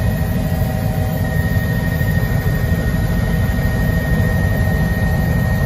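Helicopter in flight heard from inside the cabin: a steady engine and rotor rumble with a constant high whine over it.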